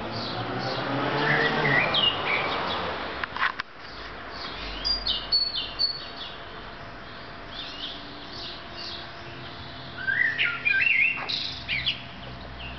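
Songbirds chirping and warbling in short bursts, heard about two seconds in, around five seconds and again near eleven seconds. A broad rushing noise, like a car passing, swells and fades during the first three seconds.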